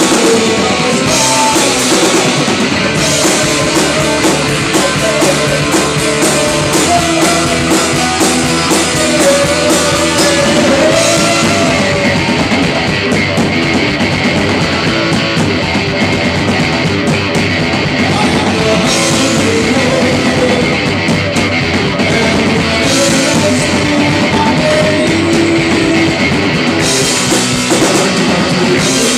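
Live rock band playing loud: drum kit with cymbals, electric guitar and bass guitar, going without a break.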